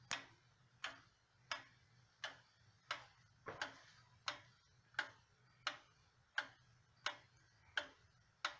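Pendulum movement of a Sessions banjo wall clock ticking, with about three ticks every two seconds, evenly spaced.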